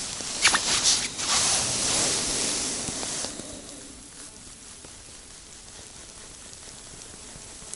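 Rustling and crunching of snow and winter clothing as an ice angler kneels down at a hole in the snow, with a couple of sharp clicks near the start. After about three seconds it drops to a steady soft hiss.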